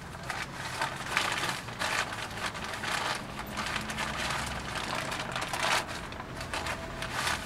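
Crumpled brown paper wrapping crinkling and rustling as hands unwrap a package, in quick irregular crackles.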